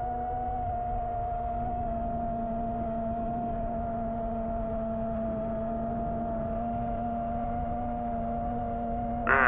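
Racing quadcopter's brushless motors whining at a nearly steady throttle, two held tones with only small shifts in pitch. A sudden louder burst comes near the end.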